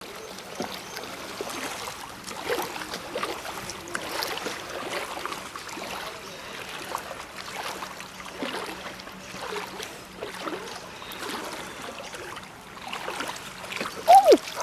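Floodwater lapping and trickling against a small rowboat, with small irregular splashes. Near the end, a short, loud rising-and-falling voice call.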